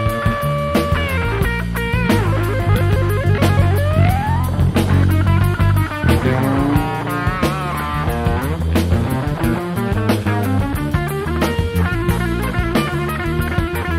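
Jazz-funk instrumental played by electric bass, drum kit and electric guitar: a steady bass groove and drum beat under a lead line of quick note runs and a rising slide a few seconds in.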